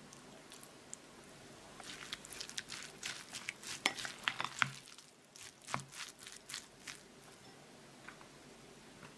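A rice paddle mixing vinegared sushi rice in a glass bowl: a run of short clicks, taps and squishes from the paddle working the rice and knocking the bowl, with a couple of duller thuds. It starts about two seconds in and dies away after about seven seconds.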